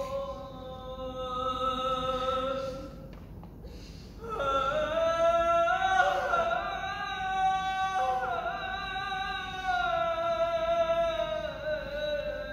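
A high solo voice singing long, slowly gliding held notes. It drops away about three seconds in and comes back louder just after four seconds.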